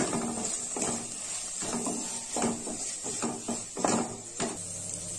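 Wooden spatula stirring diced capsicum, onion and tomato in a metal kadai, scraping and knocking against the pan about every three-quarters of a second, over a steady hiss of the vegetables frying.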